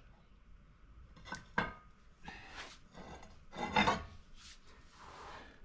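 Steel pipe being fitted over a wrench handle as a cheater bar: a few sharp metal clicks, then scraping and rubbing, with the loudest clank a little under four seconds in.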